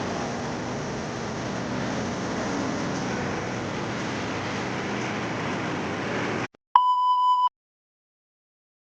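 Steady rumble of an MRT-3 train running, heard from inside the carriage. It cuts off abruptly about six and a half seconds in, followed by a short, steady electronic beep lasting under a second.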